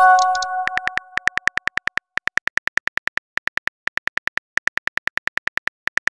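A short electronic message chime of a few tones at the start, then the rapid, evenly spaced clicks of a simulated smartphone keyboard as a text is typed, about seven clicks a second in runs with brief pauses.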